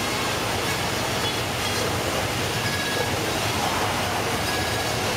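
Fish-processing machine and its conveyor running, a steady mechanical clatter and hiss at an even level.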